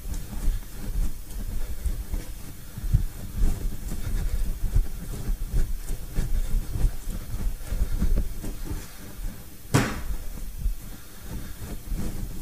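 Firm pastry dough being kneaded by hand on a wooden worktop: irregular low thumps and pushes as it is folded over and knuckled down. One sharp knock stands out near the end.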